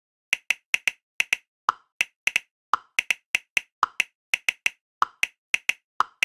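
Smartphone keyboard typing clicks: quick, sharp taps at about three or four a second, with a lower-pitched click about once a second, over dead silence.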